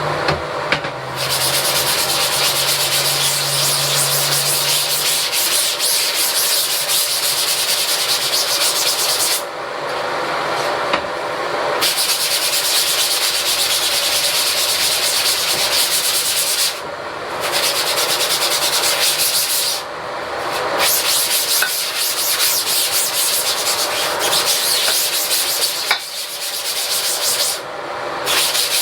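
Scrub brush scrubbing degreaser into a screen-printing screen: a continuous scratchy scrubbing with quick strokes that stops briefly a few times, over a steady hum.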